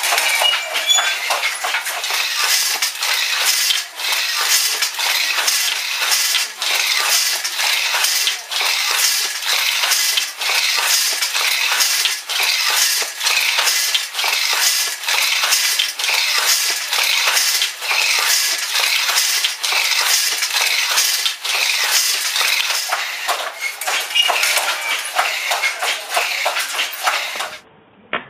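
Loud, continuous clattering and rattling with a brief dip about every two seconds; it cuts off abruptly near the end.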